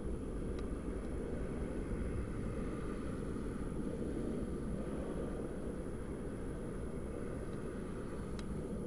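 Distant Boeing 737-900ER airliner landing and rolling out on the runway: a steady low rumble from its CFM56 jet engines.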